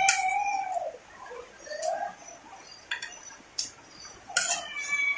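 A rooster crowing once at the start, one long arching call, with a fainter call near the end. Close by, sharp clicks of a metal spoon on a plate and crunchy chewing of fried crackers run throughout.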